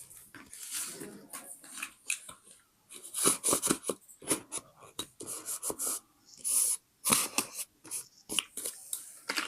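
Paper being handled for a scrapbook: irregular rustling and crinkling of paper with small taps, in quick clusters with short pauses.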